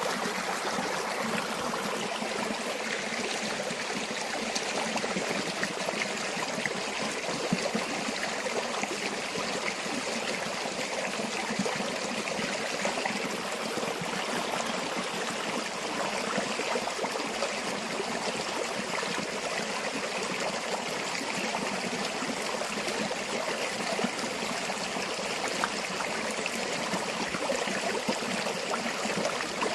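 Shallow river or stream water running and splashing over stones, a steady rush full of small trickles and gurgles.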